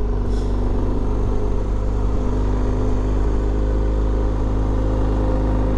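BMW R1250GS boxer-twin engine running steadily as the motorcycle cruises, mixed with wind and road noise.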